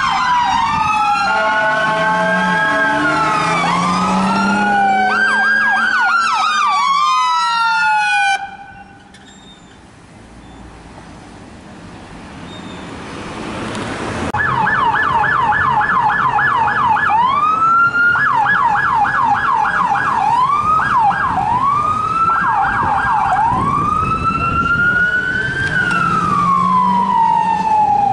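Emergency vehicle electronic sirens, switching between a slow rising-and-falling wail and a fast yelp, with several sirens overlapping. About eight seconds in the sound cuts off abruptly, leaving quieter traffic noise that swells. Around fourteen seconds a siren starts again, alternating bursts of rapid yelp with slower wail sweeps.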